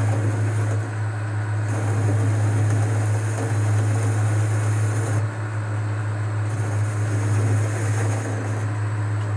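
Boxford metal lathe running with a steady low motor hum while a carbide insert tool takes a facing cut across the end of a spinning metal part. A higher hiss comes and goes several times.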